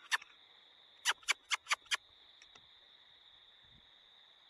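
A faint, steady, high-pitched trill of night insects, with a quick run of about five short, sharp clicks about a second in.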